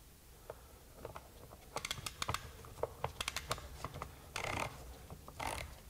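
Irregular light clicks and rattles of metal and plastic as the bar, chain and side cover of an EGO CS1800 cordless chainsaw are fitted back together by hand. Short scraping sounds come twice in the second half.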